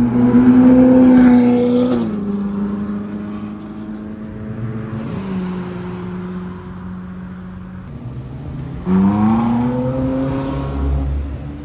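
Ferrari sports-car engine and exhaust at high revs. The note drops in pitch and fades about two seconds in, runs steadier for several seconds, then climbs sharply again near the end as the car accelerates.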